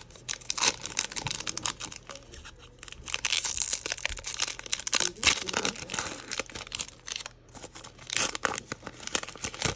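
Foil wrapper of a trading-card pack being torn open by hand: the crimped plastic-foil crinkles and rips in several spells of sharp crackling, loudest around five seconds in and again near the end.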